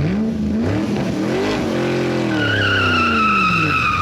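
Car engine revving up and down, joined about halfway through by a high tyre squeal.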